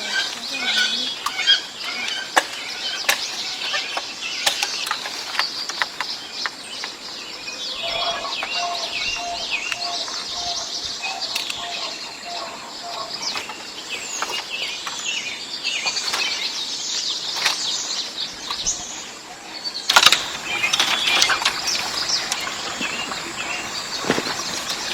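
Many birds chirping and calling, with a run of short, evenly spaced lower notes about a third of the way in. Scattered sharp clicks and knocks are heard among them.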